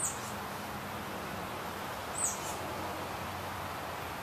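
A small bird chirping twice, about two seconds apart: short, very high notes that drop quickly in pitch, over a steady faint background hiss.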